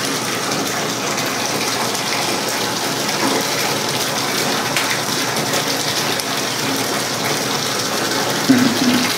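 Bathtub faucet running steadily, water pouring from the spout into a tub full of bubble-bath foam as a bath is drawn. A short pitched sound stands out near the end.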